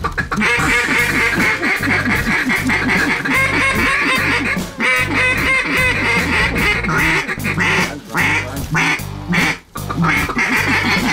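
Duck calls blown hard and continuously, loud quacks run into fast chattering, with low background music underneath.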